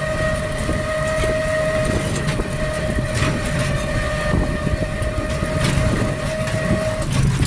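Ride in a battery e-rickshaw on a rough dirt road: a low rumble with knocks and rattles, under a steady high whine that stops near the end.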